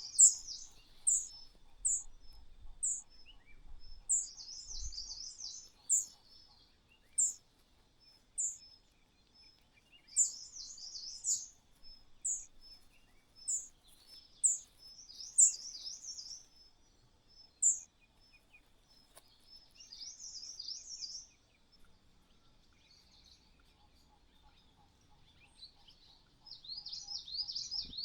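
Small birds calling: short, very high, falling notes about once a second, alternating with bursts of fast twittering chatter.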